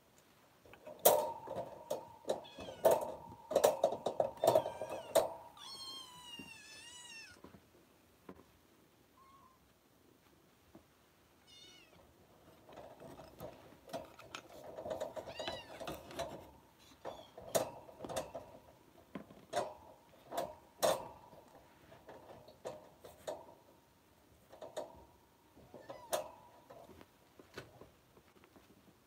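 Kittens mewing in a few high, wavering calls, among scattered sharp clicks and knocks as the litter moves about on the mother cat.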